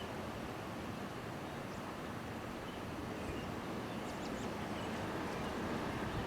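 Wind blowing across the microphone: a steady rush with a fluttering low rumble. A few faint, short, high chirps come through about midway.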